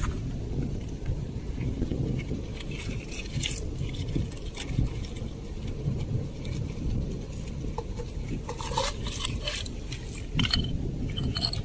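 Shells and coral fragments clicking and scraping against each other as a gloved hand digs through beach debris, in two bouts of clinks, over a steady low rumble.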